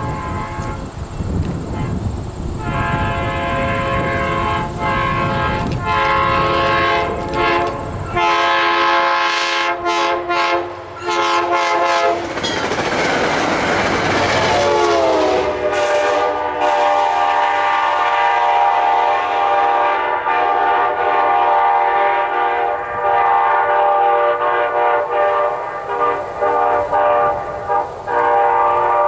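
Locomotive-hauled passenger train sounding its multi-note horn in repeated blasts as it approaches, then passing close at speed with a rush of wheel and rail noise. The horn drops in pitch as the train goes by and keeps sounding, lower, as it recedes.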